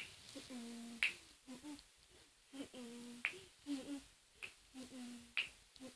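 Finger snaps keeping a beat, about one sharp snap a second, with a girl softly humming a tune between them.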